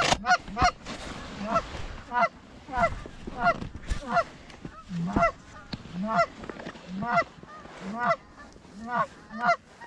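Canada goose call blown by a hunter, working a flock of geese in the air: a steady run of loud, short honks, about one and a half a second, each falling in pitch and often followed by a lower note.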